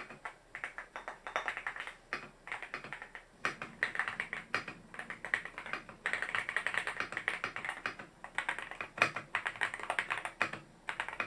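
Typing on an AULA F98 Pro V3 gasket-mounted mechanical keyboard: fast, irregular keystroke clicks in runs with brief pauses, showing off its typing sound.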